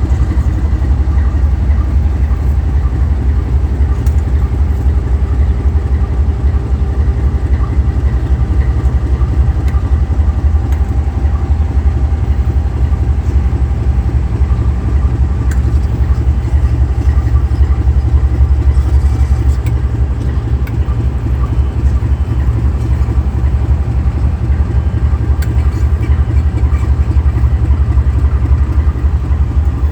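Diesel-electric locomotive engine running steadily and loudly: a deep, even rumble with a few faint steady higher tones over it.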